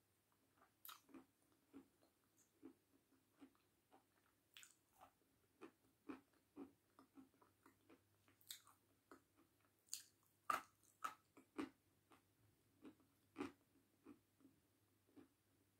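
A person chewing crunchy food with the mouth closed: quiet, irregular crunches at an uneven pace, with a louder crunch about ten seconds in.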